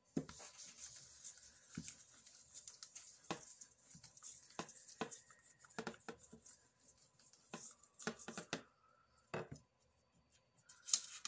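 Paper rustling and rubbing under a clear acrylic roller as it is pressed over a sheet of paper on polymer clay to burnish it flat, with irregular light clicks and knocks of the roller and hands on the work surface.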